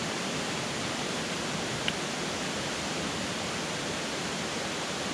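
Steady rushing of a mountain river's rapids, an even wash of water noise, with a single light click about two seconds in.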